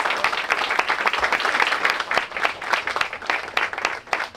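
Crowd applauding: many people clapping together, a dense patter that starts to thin out near the end.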